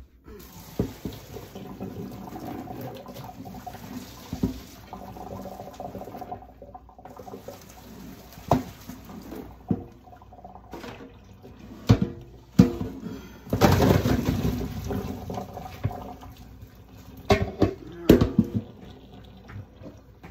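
Hot cooking water being poured off a metal pot of partly cooked potato chunks into a colander in the kitchen sink. It splashes in two spells, the second about midway, with several sharp clanks of the pot near the end.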